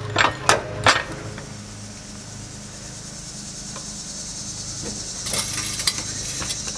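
Three sharp metallic clanks from the floor jack and jack stands within the first second, then steady outdoor background with insects chirring from about five seconds in.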